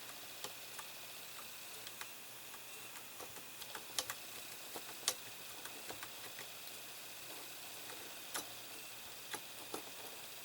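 Light, irregular clicks and taps of a small screwdriver and metal screw as the screw is worked into a nut on die-cast model suspension parts, with a few sharper clicks among them.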